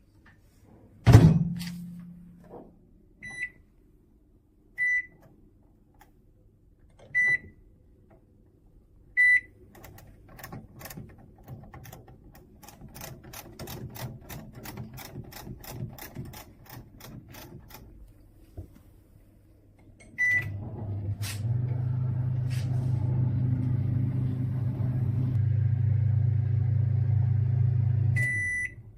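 Toshiba 800 W digital microwave oven being operated: a door thump, single keypad beeps, then a run of quick regular clicks. After a start beep it runs with a steady low hum for about eight seconds, which cuts off and is followed by beeps at the end. The owner says this unit counts down its timer but does not heat or turn the turntable.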